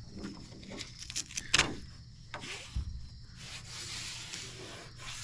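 Handling noise while masking tape is worked onto the boat: a few sharp clicks and knocks about a second and a half in, the loudest near the middle, then a soft rubbing hiss.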